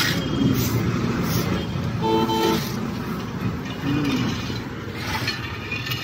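A vehicle horn honks once for about half a second, two seconds in, over the steady rumble of road traffic.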